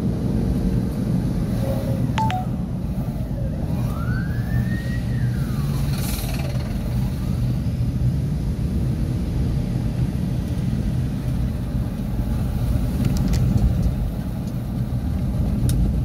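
Car engine and tyre noise heard from inside the moving car's cabin, a steady low hum and rumble. About four seconds in, a faint tone rises and then falls back once over a couple of seconds.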